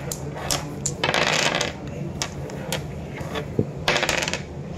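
Playing cards being shuffled by hand: two short rasping bursts, about a second in and again near the end, with scattered light clicks between.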